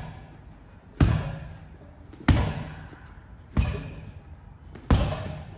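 Bare fists landing straight punches on a heavy punching bag: four solid thuds about a second and a bit apart, each dying away in a short echo.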